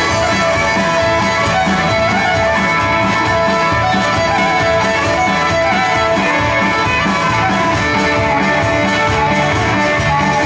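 A fiddle tune over guitar accompaniment with a steady, even beat: music for jigging.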